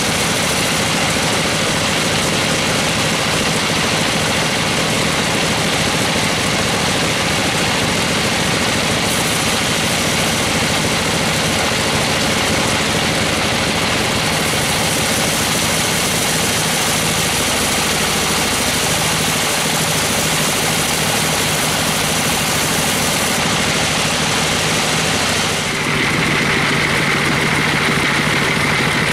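Band sawmill running steadily, its engine-driven blade cutting lengthwise through a gmelina (white teak) plank. About 26 seconds in the sound dips briefly and a steady high whine joins the machine noise.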